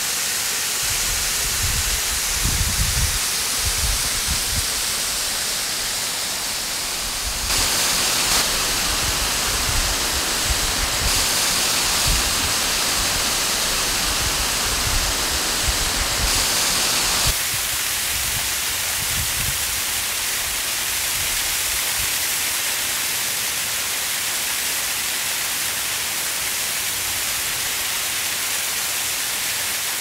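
Steady rushing water of a waterfall, with gusts of wind rumbling on the microphone through the first half. The noise shifts suddenly in character several times.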